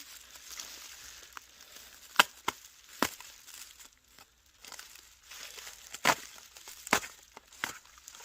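Packaging being torn and handled while unboxing a chainsaw kit: crinkling and tearing with about six sharp clicks and knocks, the loudest about two seconds in and again about six seconds in.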